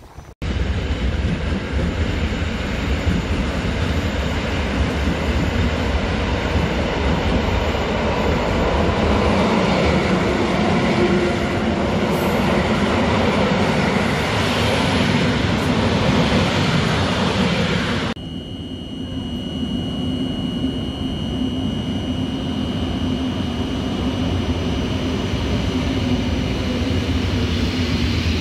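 SKM electric multiple-unit commuter trains: one runs past close by with a dense rumble of wheels on rail that swells towards its middle. After a cut about 18 seconds in, another unit moves off from a platform with a lower rumble and a steady high whine.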